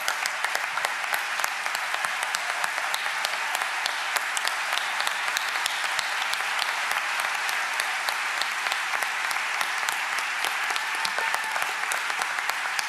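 An audience applauding, a dense steady clatter of many hands clapping.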